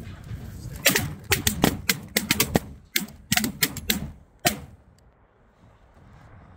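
A rapid volley of shotgun shots from several hunters, many sharp reports in quick succession over about three and a half seconds, stopping about four and a half seconds in.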